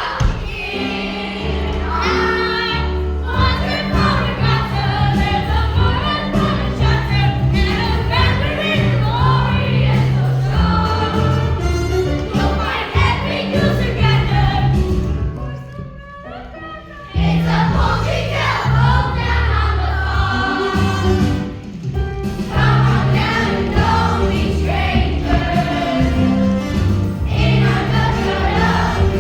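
A group of voices singing a musical number over instrumental backing. The music drops to a brief lull about fifteen seconds in, then comes back in full.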